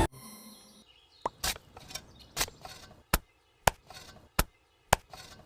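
A garden tool chopping into soil: about seven short, sharp strikes at an uneven pace, one every half second to second.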